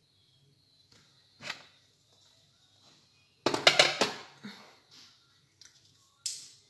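Small objects being handled on a table: a soft swish, then a quick run of sharp clicks and rustling about three and a half seconds in, and a last short clatter near the end, with near quiet in between.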